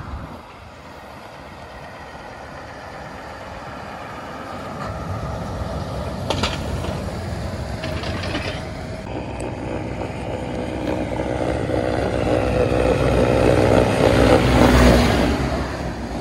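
Road traffic: vehicle engine and tyre noise builds steadily and peaks as a heavy vehicle passes close near the end. A sharp clatter sounds about six seconds in.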